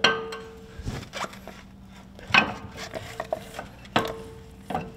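Metal-on-metal knocks and clunks as a Jeep front axle shaft and its unit-bearing hub are slid by hand into the steering knuckle: about six separate knocks, with a faint ring lingering after some of them.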